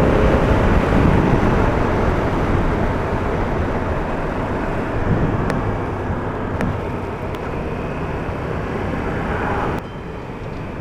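Wind rush and running noise from a Yamaha MT-10 motorcycle on the move. The noise eases off gradually, then drops sharply about ten seconds in.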